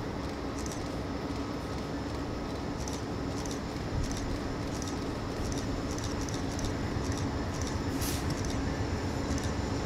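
Amtrak diesel passenger locomotive approaching slowly, a steady engine drone that grows gradually louder. Faint high clicks come now and then, with a sharper one about eight seconds in.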